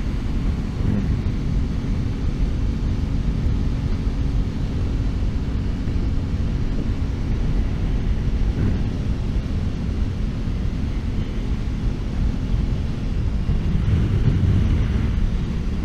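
Aprilia RS660 parallel-twin engine running at a steady cruise, with wind rushing over the microphone.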